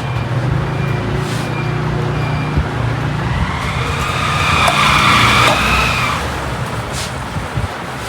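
A motor vehicle running, a steady low hum that swells in the middle, with a high squeal rising and fading about four to six seconds in.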